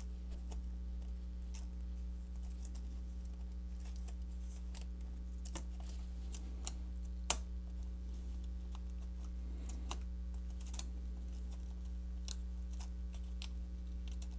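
Scattered faint clicks and taps of fingers handling a Chromebook trackpad and its ribbon cable in the open laptop chassis, with one sharper click about seven seconds in, over a steady low hum.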